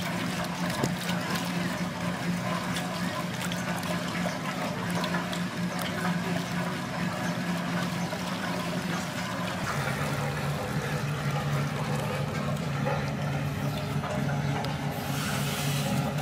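Water sloshing and trickling as wet mud is washed by hand in a large metal pan dipped in a shallow pool, panning the sludge. A steady motor hum runs underneath and drops slightly in pitch about ten seconds in.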